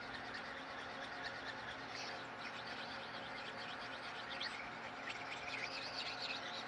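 Flat deburring stone rubbed over the ground steel face of a spin jig to take off burrs: faint, irregular high scratching.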